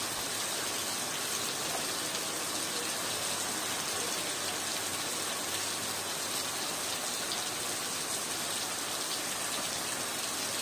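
Steady monsoon rain falling on wet ground and a clay-tile roof, an even unbroken hiss of drops.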